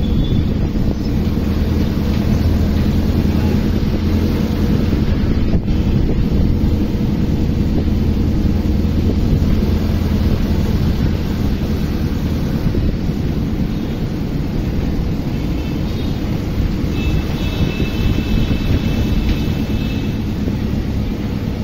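Steady engine drone and road noise from a moving vehicle, with wind on the microphone. Near the end a faint vehicle horn sounds for about three seconds.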